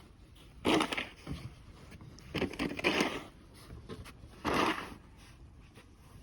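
Snow crunching and scraping in three separate noisy spells, each under a second long, about a second and a half to two seconds apart.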